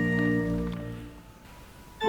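A held chord of choral music dies away about a second in, leaving a short lull.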